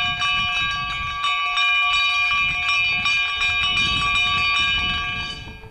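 Metal bells ringing continuously, rapid clapper strikes keeping several ringing tones going at once; the ringing cuts off abruptly near the end.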